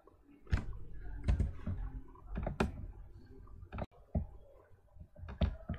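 Irregular computer mouse and keyboard clicks with soft knocks, about ten in all, spread unevenly: the presenter working the computer to move on to the next slide.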